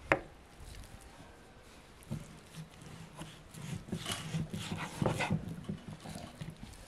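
Knife cutting raw beef on a wooden chopping board: a sharp knock at the very start, then from about two seconds in, slicing and handling the meat with the blade knocking against the board.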